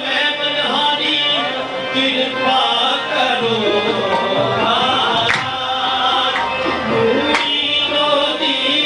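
Qawwali music: men singing over harmonium, with hand-drum percussion and a couple of sharp strokes standing out.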